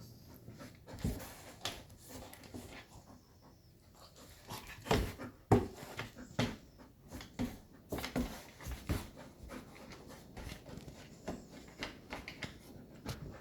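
Golden retriever panting during rough play, with irregular scuffling and knocking. The loudest thumps come about five seconds in.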